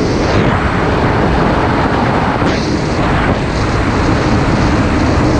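Jet ski engine running hard under way, mixed with a steady rush of water and wind. A short surge of rushing noise comes about two and a half seconds in.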